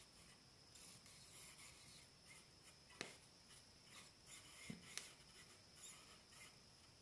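Faint scraping and rubbing, with two sharp clicks about two seconds apart.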